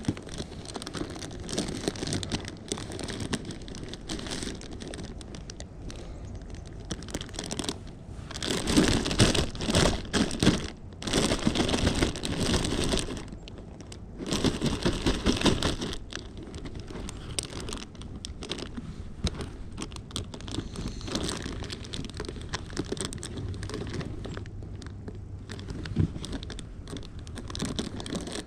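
Clear plastic bag crinkling and rustling as it is handled with a caught fish going into it, with louder stretches of rustling around the middle.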